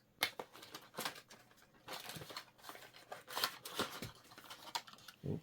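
Packaging of 120 mm case fans being opened by hand: irregular rustling and tearing with scattered clicks and taps.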